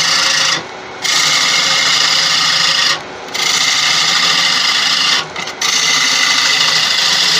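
Bowl gouge cutting into the inside of a spinning wooden bowl on a lathe: a steady shearing hiss in four passes, broken by short pauses about half a second in, about three seconds in and about five seconds in. A faint steady hum from the running lathe lies under it.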